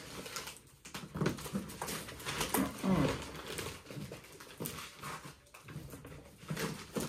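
Cardboard box and brown wrapping paper rustling and scraping in stops and starts as a heavy wrapped package is worked out of the box. A pet gives a short whining call about three seconds in.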